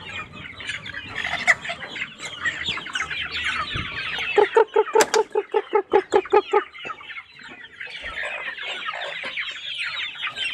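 A flock of young ayam kampung super chickens clucking and peeping together, with many short high falling calls throughout. About four seconds in, a fast run of low clucks, roughly seven a second, lasts some two seconds, with a sharp click near its start.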